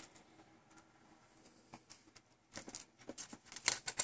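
Faint handling noise: rubberized cables being coiled and packing pieces shifting against a cardboard box, with a click at the start and a run of small clicks and rustles in the last second and a half.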